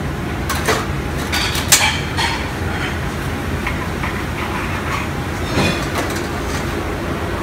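Steady hum of commercial kitchen ventilation, with a few sharp knocks and clinks of a knife and plate as a grilled sandwich is cut on a wooden board and plated: a cluster in the first two seconds, the sharpest about two seconds in, and a few more near six seconds.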